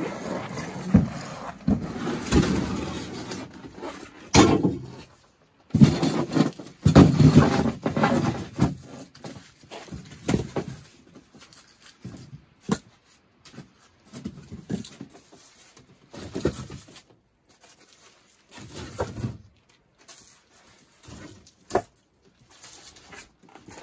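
A plastic pull sled loaded with firewood dragged scraping over snow, followed from about halfway on by split firewood logs knocking and clacking as they are lifted out and stacked on a wooden pile, one or two knocks at a time with short pauses between.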